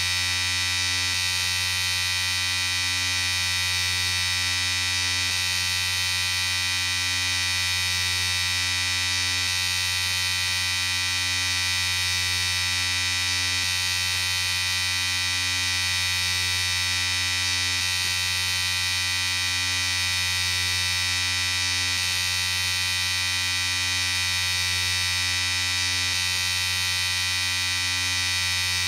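Electric shaver running continuously with a steady buzzing hum and bright high overtones, unchanging throughout.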